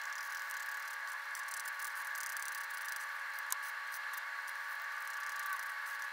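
Workshop sound sped up six times: a steady high whir with a fast, fine scratching from hand-sanding Osage orange wood, and a single click about three and a half seconds in.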